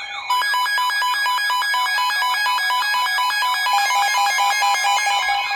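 Several weather-alert radio alarms sounding together for an incoming National Weather Service severe thunderstorm warning: warbling siren-like sweeps over steady tones and fast beeping, louder from about a third of a second in.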